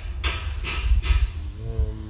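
Plastic console trim being handled and pulled, a few short rustling scrapes in the first second, over a low rumble of handling noise on the microphone. A short hummed voice sound near the end.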